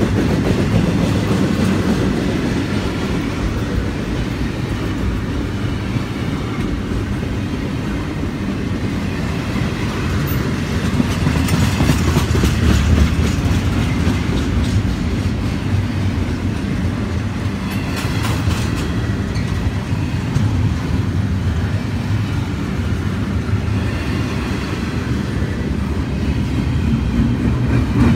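Double-stack intermodal freight train's well cars rolling past: a steady rumble of steel wheels on the rails with clickety-clack over the rail joints and now and then a short run of louder clicks.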